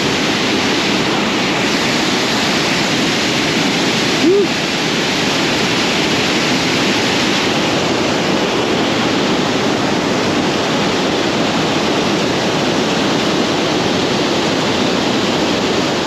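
Small waterfall: water pouring and splashing in a steady, loud rush, with one short click about four seconds in.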